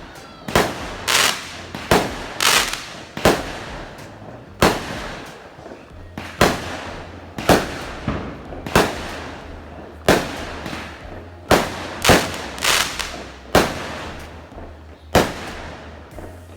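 Fireworks going off: about twenty sharp bangs at an uneven pace, roughly one or two a second, each trailing off in an echo.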